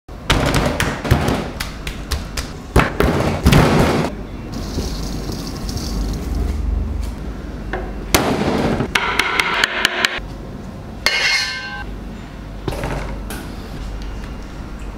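Knife chopping lamb on a plastic cutting board: a quick run of sharp chops over the first four seconds, then fewer, scattered knocks.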